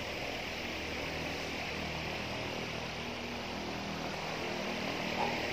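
Steady, even background hum and hiss with no distinct events.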